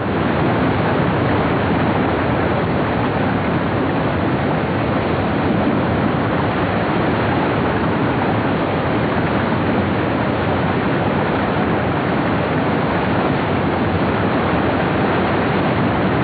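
White-water rapids rushing, a loud, steady noise with no let-up.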